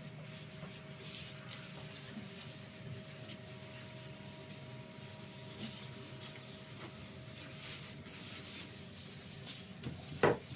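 Quiet, irregular rubbing strokes on wood, like hand-sanding during a repair, with two sharp knocks near the end.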